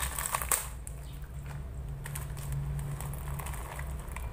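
Plastic snack packet crinkling and puffed snacks dropping and rattling into a glass bowl as the packet is emptied. The crackling is busiest in the first second, then thins to faint scattered clicks.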